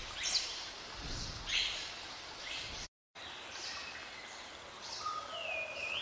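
Jungle ambience: a steady hiss of water under high bird calls that sweep downward. The sound cuts out to silence for a moment about three seconds in, then comes back, and wavering whistled bird calls rise and fall near the end.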